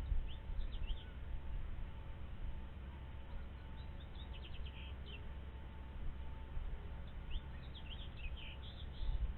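Birds chirping in three quick clusters of short, high notes: one near the start, one in the middle and a longer one near the end. A steady low rumble runs underneath.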